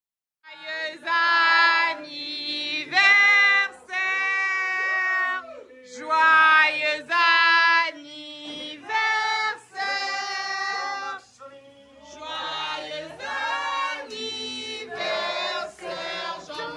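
Group of voices singing a birthday song together, in held notes and phrases with short breaks between them.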